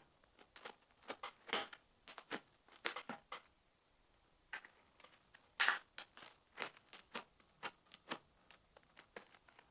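Clear glue slime being worked by hand into a small pot: quiet, irregular sticky crackles and pops, with a short pause about midway.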